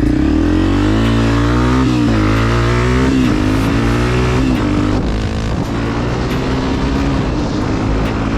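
Honda CRF250F single-cylinder four-stroke dirt bike with a Pro Circuit aftermarket exhaust, launched hard from a stop. The engine revs climb, dip at a gear change about two seconds in, climb again, then settle into a steadier run.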